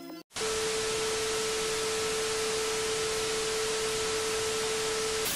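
Television static hiss with one steady test tone held through it. It starts a moment in, right after music cuts out, and stops abruptly at the end.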